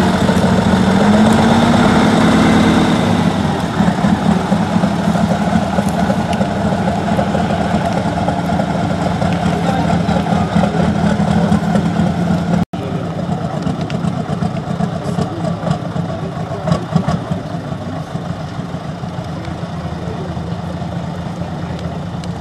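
Praga V3S 6x6 trial truck's engine working as the truck pulls through deep mud, revving up about a second in and easing back around three seconds, then running steadily at low speed.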